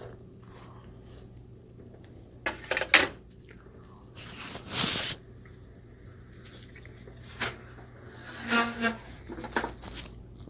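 Hard plastic clicks and knocks as the exit sign's snap-on front cover is unclipped and pulled off, the sharpest about three seconds in, with a short rustle about five seconds in and more small clicks near the end, over a steady low hum.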